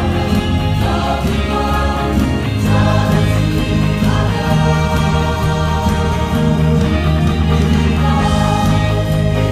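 Mixed choir of men's and women's voices singing a gospel hymn together, steady and continuous.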